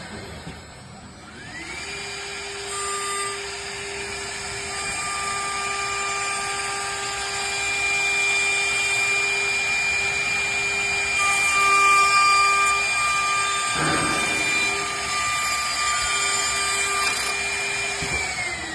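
4-axis CNC wood lathe and milling machine running: its motor whines up to speed about a second in, holds a steady high whine with extra tones coming and going over it, then winds down near the end.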